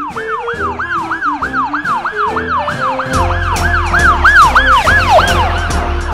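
Ambulance siren in a fast rising-and-falling wail, about three sweeps a second, stopping near the end, over background children's music.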